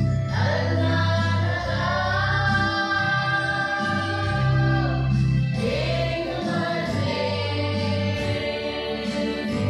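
A woman and two children singing a gospel song together into a microphone, in long held notes over a steady low accompaniment.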